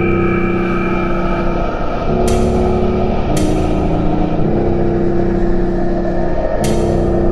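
Dark midtempo industrial electronic music: sustained low synth chords that shift every second or two, with a sharp hit three times.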